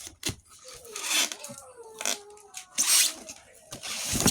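Rustling and knocks of packaging being handled as a small inverter welding machine is lifted out of its box.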